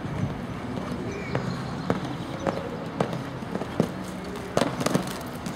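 Hooves of a cantering show-jumping horse striking the arena surface: sharp knocks about every half second, with a quick cluster of several near the end, over a steady low hum.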